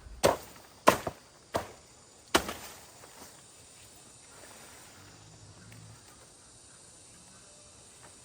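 Four sharp chopping impacts in quick succession over about two seconds, then only faint background sound.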